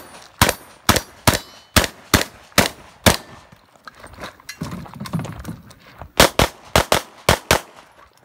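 Gunshots: a string of evenly paced single shots at about two a second, a pause of about three seconds, then a faster string of shots near the end.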